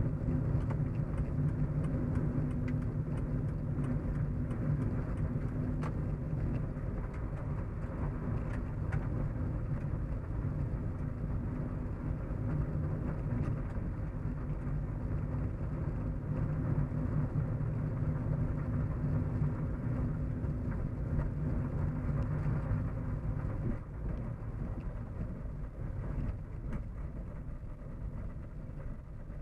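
Steady hum inside a moving car: road and engine rumble with a low droning note, which eases and gets a little quieter about four-fifths of the way through.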